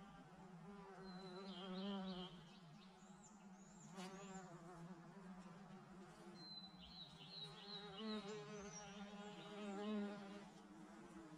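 Bees buzzing in flight, a faint hum that wavers in pitch and swells louder as one passes close, about two seconds in and twice more near the end.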